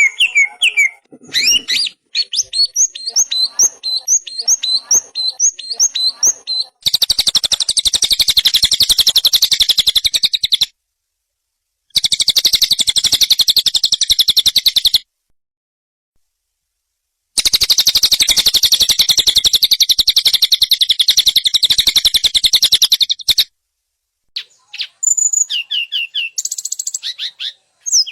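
Recorded songbird master track: a run of quick repeated chirps, then long, very fast trills of rattling high notes that stop dead twice, with scattered chirps near the end.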